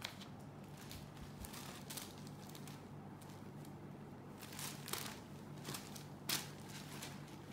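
Soft rustling of a saree and its plastic packaging as it is unpacked and unfolded: a few brief scattered rustles over a faint steady low hum.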